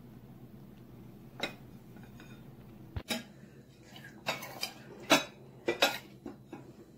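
A metal serving spoon clinking against a ceramic bowl while scooping out stir-fried vegetables: a few scattered clinks, then a quick run of them in the second half, the loudest about five seconds in.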